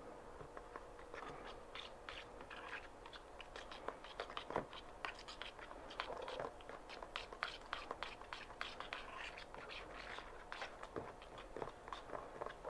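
Faint, irregular crackling and scraping of copper carbonate powder being stirred into phosphoric acid in a plastic bottle while the mixture reacts and foams.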